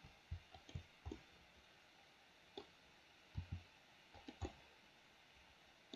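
Faint, irregular clicks of a computer mouse and keyboard keys, about ten taps scattered with pauses between them.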